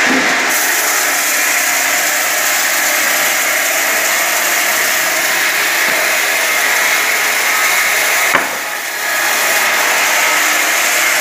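Multi-blade log rip saw running steadily as a conveyor feeds a log through its blades, a loud continuous machine noise. A sharp knock comes about eight seconds in, and the sound dips briefly after it.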